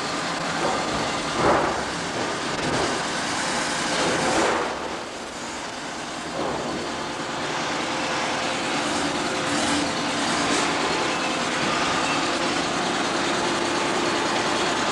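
Forklift truck engine running steadily with a low hum as it carries a pallet load and sets it down into a vehicle, with two brief louder noises in the first five seconds.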